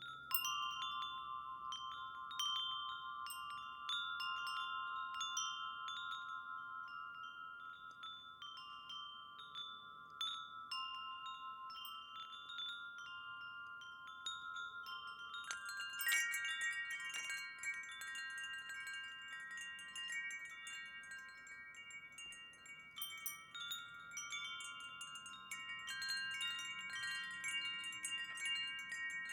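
Wind chimes ringing: many overlapping clear, long-ringing tones struck in an irregular succession, starting suddenly. About halfway through, a brighter, higher set of chime tones joins in and the ringing grows denser.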